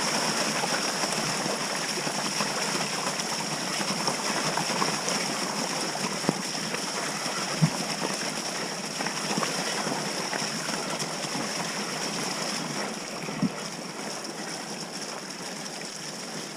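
Mountain bike riding fast down a muddy woodland trail: a steady rush of tyre and wind noise with a thin high whine under it, and sharp knocks from bumps about six, seven and a half and thirteen seconds in.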